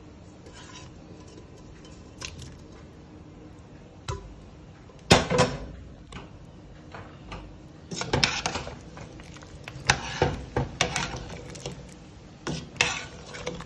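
Stainless steel bowl and utensils clinking and knocking against a cooking pot as chopped pig's tail and corned pork are tipped into it. The clinks are scattered: a few single ones, the loudest about five seconds in, then quick clusters through the second half.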